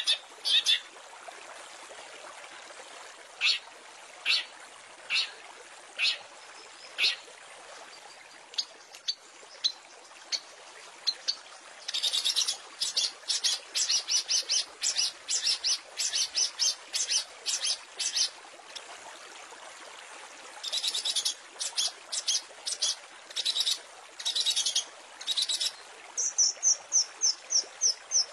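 Long-tailed shrike (cendet) singing: sharp, high notes, spaced out at first, then fast runs of notes from about halfway through, and a quick, even series of high notes near the end, over a steady hiss.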